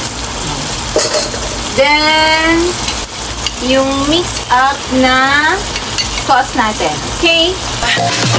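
Steady sizzle of shrimp, egg, Chinese broccoli and rice noodles frying in a hot wok.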